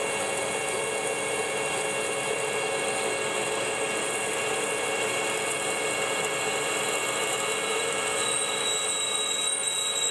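Manual lathe running while a thinned-web pilot drill in the tailstock drills the tapping hole through the centre of spinning bar stock: a steady hum and whine of the machine's drive with the hiss of cutting. About eight seconds in, a higher whine joins in.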